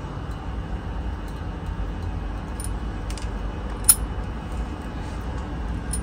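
Steady low background rumble with a few light clicks from small parts being handled, the sharpest click about four seconds in.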